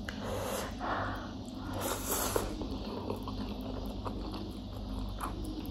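Slurping and chewing noodles close to the microphone: two hissing slurps in the first couple of seconds, then soft wet chewing sounds.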